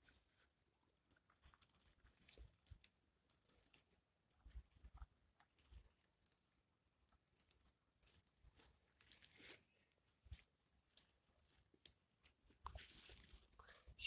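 Faint, scattered crackles and crunches of dry pine needles and twigs on the forest floor, with a few short rustles a couple of seconds in, around the middle and near the end.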